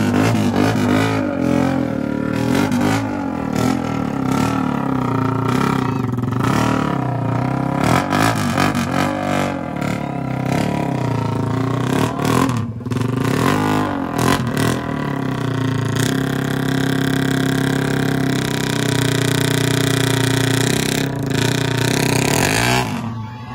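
Motor scooter engine revved hard again and again, its pitch swinging up and down, then held at high revs for several seconds before dropping off sharply near the end.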